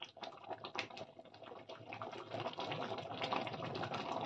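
Thick chickpea curry gravy simmering in a pan, a steady patter of small irregular bubbling pops that grows a little louder.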